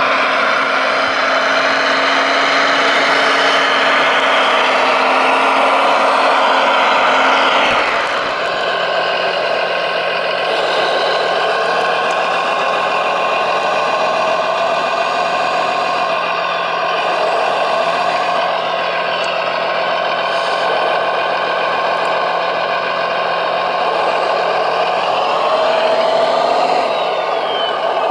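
Radio-controlled Mercedes-Benz Arocs 6x6 model truck running as it hauls a loaded trailer: a steady mechanical drone with several held tones. The sound changes abruptly about eight seconds in, then carries on steadily.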